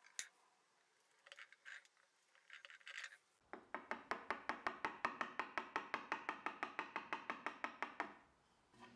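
A wood chisel working oak veneer: a few light scrapes, then about four seconds of quick, even ticks, roughly seven a second, that stop abruptly.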